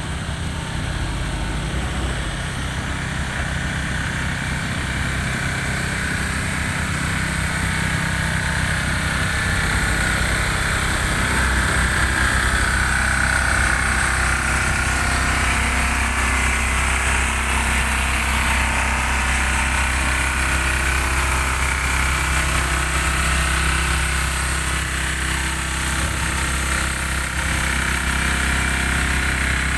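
A boat's engine running steadily, a low hum with a rumble, under a hiss of wind and water that grows louder through the middle.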